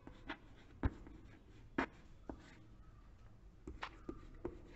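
Chalk writing on a chalkboard: faint, irregular taps and short scratches of the chalk strokes, about a dozen in all, in a small room.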